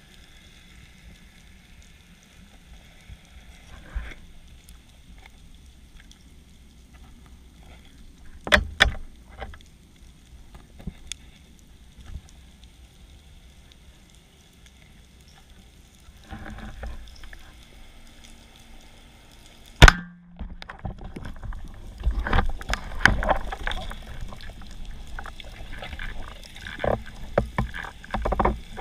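Underwater sound on a spearfishing dive: a faint steady background with scattered clicks and knocks, a single very sharp, loud crack about two-thirds of the way through, then a run of knocking and rustling from the diver's gear near the end.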